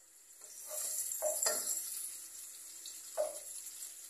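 Diced onions sizzling in hot oil in a pot: a high, steady hiss that swells about a second in and then eases, with a few light knocks.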